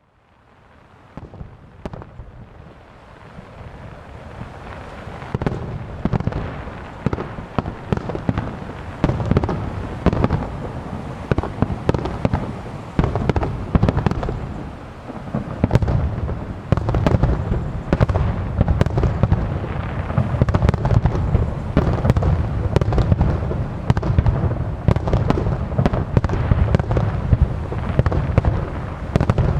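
Star mine fireworks barrage: aerial shells launched and bursting in rapid, overlapping succession, a dense run of bangs with a heavy low rumble. It starts faint and builds over the first few seconds, then keeps going at full intensity.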